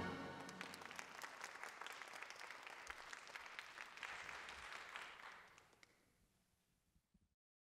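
Audience applauding, a dense patter of many claps that thins and fades away about five and a half seconds in.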